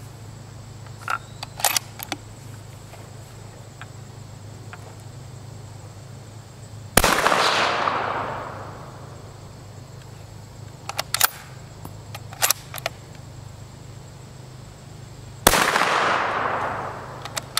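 Two unsuppressed shots from a .308 CZ 557 bolt-action rifle with a 16-inch barrel and no muzzle brake, firing 240-grain subsonic ammunition about eight seconds apart. Each is a sharp crack followed by a long echo that dies away over a second or two, measured at about 157 dB peak. Light clicks of the bolt being worked come between the shots.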